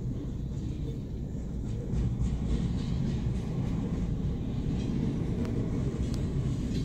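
Freight train cars rolling past, heard from inside a car: a steady low rumble of wheels on rails, with a few faint clicks in the second half.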